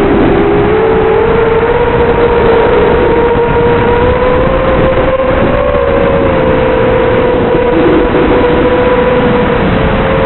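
Racing quadcopter's four Multistar Elite 2204-2300KV brushless motors spinning 5-inch three-blade props in flight: a steady high whine over a dense rush of noise. The pitch dips right at the start, climbs back within a second or two, then holds with small wavers as the throttle shifts.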